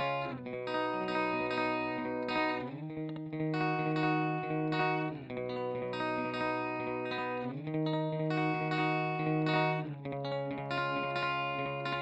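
Electric guitar, a Fender Jaguar, played through an Electro-Harmonix Polyflange in Double Track mode at its maximum delay time and a Fender Twin Reverb amp. Held chords change about every two and a half seconds, sliding in pitch from one chord to the next.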